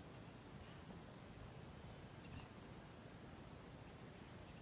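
Faint, steady, high-pitched chorus of insects trilling without pause over a low background rumble.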